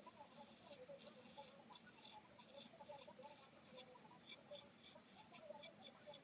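Faint, scratchy crackle of a Gillette Tech safety razor scraping through lathered stubble in short strokes.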